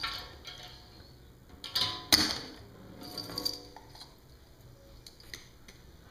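A small plastic toy and a plastic wiffle ball clicking and knocking on a glass tabletop as they are set down and roll across it. There are several sharp knocks with a brief ring after some of them, the loudest about two seconds in.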